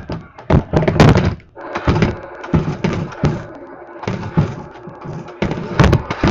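A rapid, irregular run of knocks and thuds, hard objects striking, loudest about a second in and again near six seconds.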